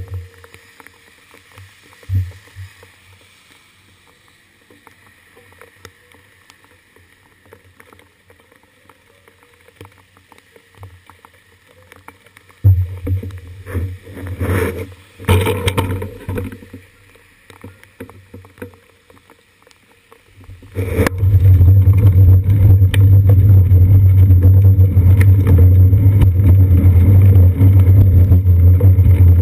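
Muffled, faint background sound while the bicycle stands still, broken by a few knocks and rumbles about halfway through. About two-thirds in, a loud steady low rumble starts and keeps on as the bike rides off: wind and road vibration on a seat-post-mounted GoPro Hero 2 in its waterproof housing.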